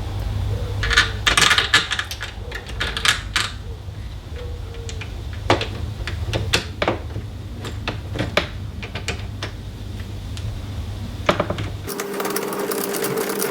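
Small metallic clicks and clinks of screws and lock parts being handled and fitted into a door, with a short steady whirr near the end.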